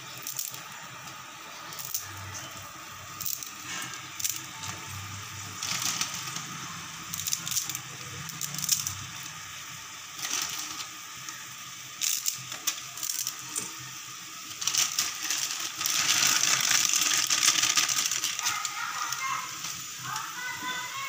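Instant noodle cakes being broken and dropped into a pan of simmering masala water: scattered dry crackles and clicks over the steady hiss of the bubbling liquid, with a louder stretch of hissing about sixteen seconds in.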